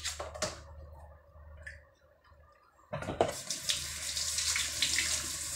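Two sharp knife taps near the start, then, about three seconds in, a kitchen tap starts running water into the sink with a steady hiss.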